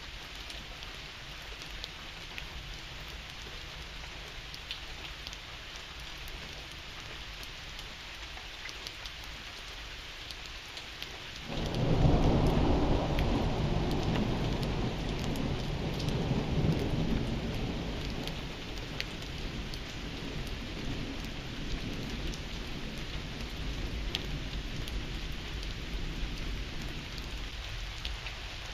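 Steady rain falling, with scattered sharp drip ticks. About twelve seconds in, a thunderclap breaks suddenly and rumbles on, fading slowly over the following several seconds.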